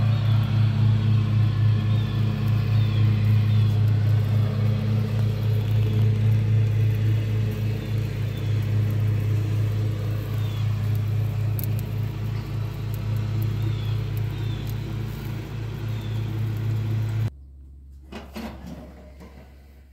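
Steady low rumbling hum of a lit gas grill's burners, heard with the lid open. It cuts off suddenly near the end.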